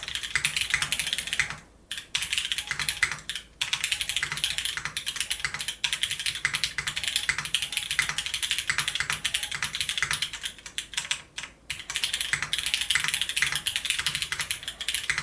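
Steady, fast typing on an Odyssey TKL custom mechanical keyboard: a dense run of clacky key strikes, broken by a few brief pauses.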